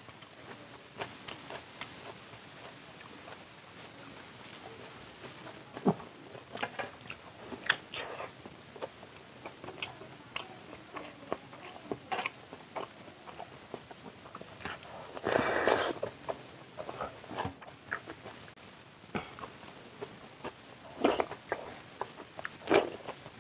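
Close-up eating sounds of a person chewing chicken chow mein and egg curry: wet chewing, lip smacks and sharp mouth clicks scattered through, with one louder, noisier sound lasting under a second about fifteen seconds in.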